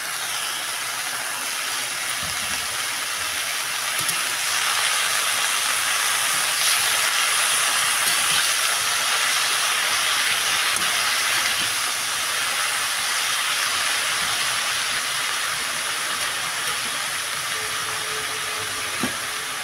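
Chopped kohra saag greens sizzling in a hot kadai: a steady hiss, a little louder in the middle.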